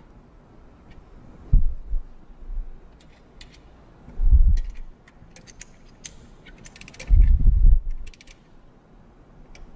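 Ratcheting torque wrench tightening the 19 mm stay bolt nuts on a Grundfos CR pump's motor stool: short runs of ratchet clicks, with three dull thumps from the wrench and pump, the loudest near the end.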